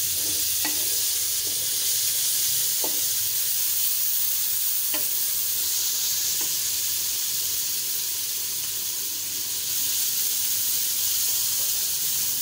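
Onions and garlic-ginger paste sizzling in hot oil in a metal pan while a spatula stirs them, with a few light clicks of the spatula against the pan in the first half.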